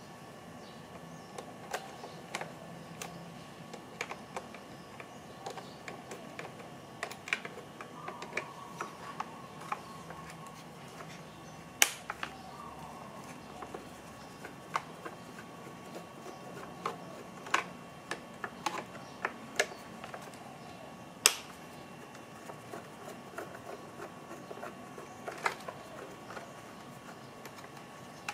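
Sparse, irregular clicks and taps of a screwdriver and small screws against the hard plastic housing of a Hyundai Veloster power-folding side mirror as it is being taken apart, with two sharper knocks in the middle.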